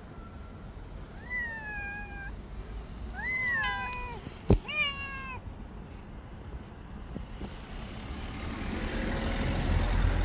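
A cat meowing three times, each call rising then falling in pitch, with one sharp knock just before the third. In the last few seconds a rushing noise swells up.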